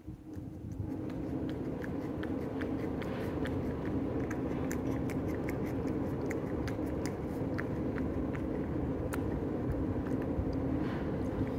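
Cat licking Churu paste from a small dish: a run of small wet tongue clicks, several a second, over a steady low hum.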